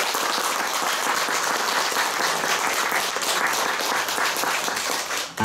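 Audience applauding, a dense, even clapping that breaks off suddenly just before the end.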